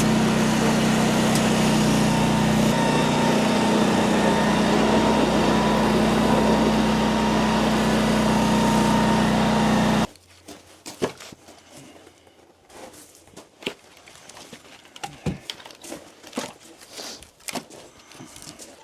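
A small engine running steadily, cutting off abruptly about ten seconds in; after that, only faint scattered clicks and knocks.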